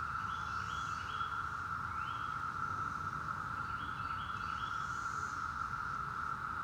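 Northern mockingbird singing short phrases every second or two, over the steady, even drone of a Brood X periodical cicada chorus, which is the loudest sound.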